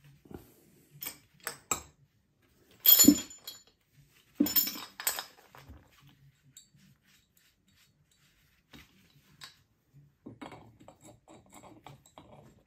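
Metal parts of a ZF 5HP24A gearbox oil pump and a steel tube being handled, clinking and knocking: a few light clicks, then two louder metallic clanks that ring briefly about three and four and a half seconds in, then faint handling noise near the end.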